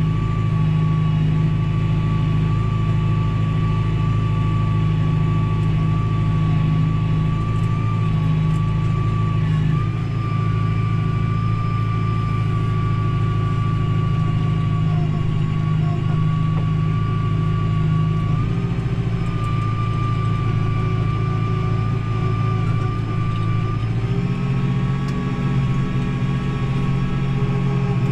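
Tractor diesel engine running steadily under load, pulling a field cultivator through wet, muddy soil, with a steady high whine above the engine note. The engine note shifts slightly about ten, eighteen and twenty-four seconds in.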